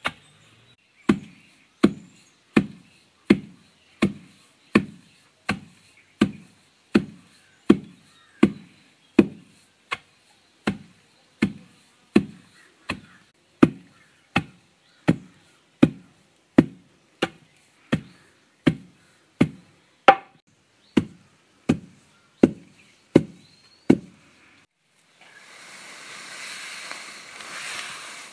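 Wooden pestle pounding rice in a mortar: a steady series of dull thuds, about one every three quarters of a second, beating the grain into flour. Near the end the pounding stops and a steady rustling hiss follows as the flour is sifted in a metal sieve.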